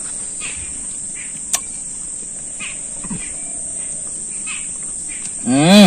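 Steady, high-pitched insect drone that holds unbroken, with a single click about a second and a half in. A man's voice breaks in near the end.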